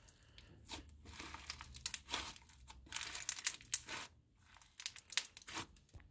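Thick gray slime packed with foam beads and bingzu beads being pressed, folded and squished by hand, giving quick crackling pops in bursts that stop just before the end.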